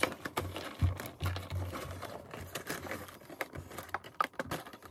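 Scissors snipping through a stiff clear plastic blister tray, the plastic crinkling and crackling in quick, irregular clicks with a few dull knocks.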